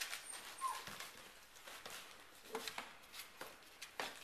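Goldendoodle puppy mouthing a hand on a lap: soft scattered clicks and rustles, with one short high squeak from the puppy a little under a second in.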